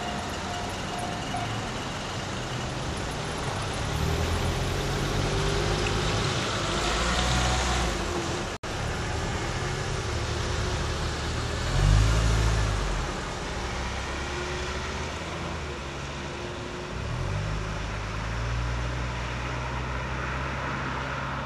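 A level-crossing warning bell rings its last repeated strokes and stops about a second and a half in. Then road vehicles start up and drive over the crossing one after another, the loudest passing about halfway through, with traffic noise throughout.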